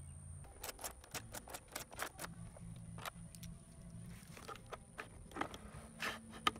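Hard plastic parts and wiring of a scooter's front body being handled and fitted, giving small sharp clicks and rattles: a quick run of them in the first two seconds, then scattered knocks.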